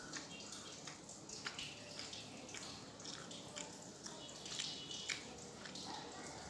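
A person chewing food close to the microphone: irregular soft mouth clicks and smacks.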